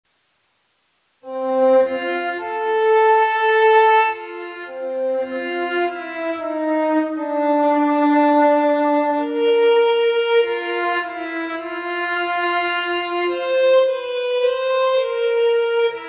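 Instrumental background music starting about a second in: a slow melody of long held notes, violin-like, over a lower accompanying line.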